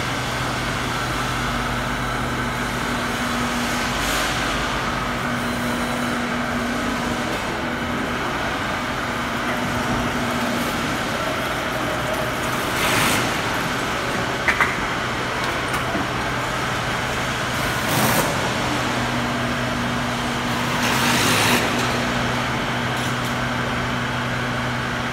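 Truck assembly hall noise: a steady low machinery hum over a wash of background noise, broken by three short hisses and a quick pair of clicks.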